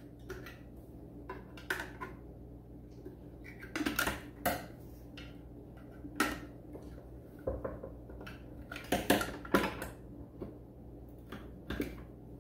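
Screwdriver clicking and scraping on the spring-loaded J-hook latches of a GM large-cap HEI distributor cap as they are pried loose: irregular metal clicks and clatters, with busier clusters about four and nine seconds in, over a steady low hum.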